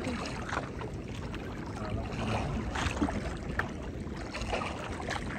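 Water lapping and slapping against the hull of a small wooden outrigger canoe on choppy water, with a few short splashes.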